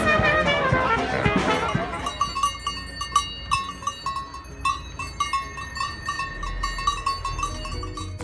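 Brass band music over a crowd's chatter for about two seconds. Then bells on walking cows clank and ring irregularly, a few strikes a second.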